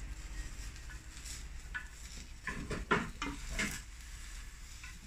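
Wooden chopsticks knocking and scraping against a square tamagoyaki pan as the rolled egg omelette is turned, over a faint sizzle of egg frying. A run of clicks and knocks comes between about two and a half and four seconds in, the loudest near three seconds.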